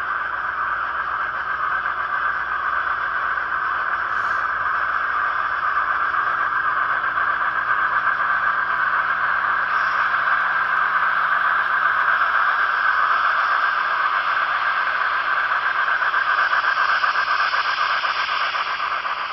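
Sound-equipped N-scale PRR T1 duplex steam locomotive models running, their small on-board speakers playing a steady, high-pitched steam chuffing hiss. It grows louder about halfway through as the locomotives come close.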